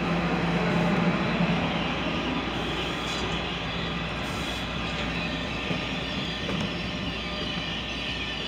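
NJ Transit Multilevel double-deck passenger coaches rolling past a station platform at close range. The wheels on the rails make a steady rumble, with a low hum that is strongest in the first two seconds.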